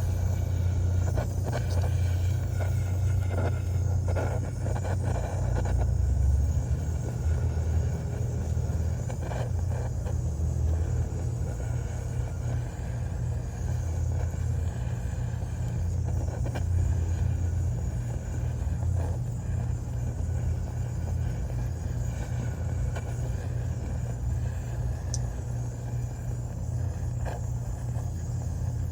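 Torch flame running steadily with a low rumble, heating a furnace-oil sample in a pan.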